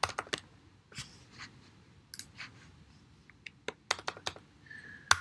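Scattered sharp clicks of a computer mouse and keyboard, coming a few at a time with short quiet gaps; one of the sharpest falls near the end.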